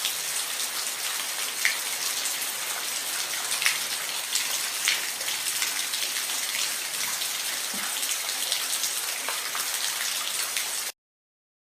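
Steady rain falling, an even hiss with occasional single drops ticking sharply on a surface. It cuts off suddenly near the end.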